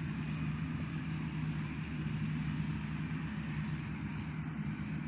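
A machine's engine running steadily at a constant speed with a fast, even low beat, in keeping with rice-harvesting machinery at work.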